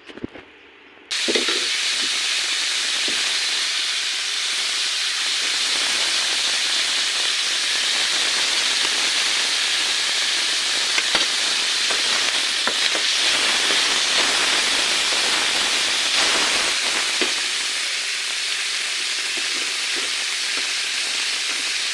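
Food frying in a hot pan: a loud, steady sizzle that starts abruptly about a second in and keeps going.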